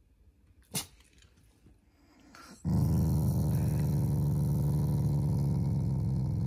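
Black Shiba Inu growling while being petted on the head: one low, steady growl that starts about two and a half seconds in and is held for about four seconds, after a single faint click. It is a playful, affectionate growl, not an angry one.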